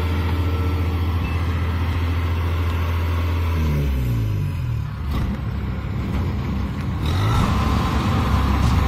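Kubota DC-70 combine harvester's diesel engine running steadily at high revs. About three and a half seconds in, the pitch slides down as the revs drop, and it runs lower and quieter for a few seconds before revving back up near the end.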